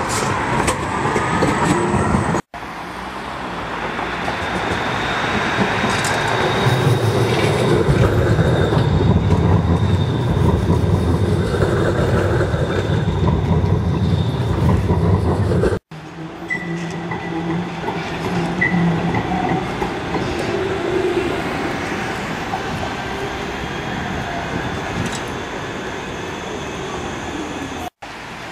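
Street trams running on rail: a steady rumble of wheels and running gear, with a rising motor whine near the start and a thin high-pitched wheel squeal in the middle. The sound breaks off abruptly twice, about 2.5 s and 16 s in, as one shot cuts to the next.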